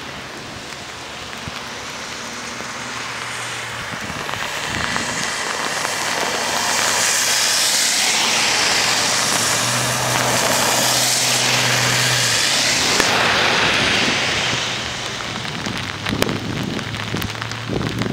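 A car drives past on a rain-soaked road, its tyres hissing through the standing water over steady rain; the hiss builds, is loudest about halfway through with a low engine hum under it, then fades. A few sharp taps close by near the end.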